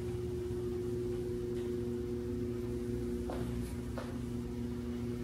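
Steady low mechanical hum in a room, with two faint taps a little after three seconds and about four seconds in.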